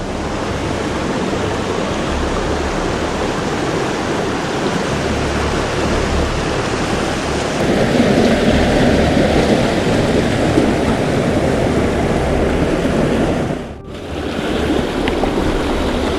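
Fast trout-stream water rushing over rocks close by, a loud, steady churning noise; it dips sharply for a moment about three-quarters of the way through, then carries on.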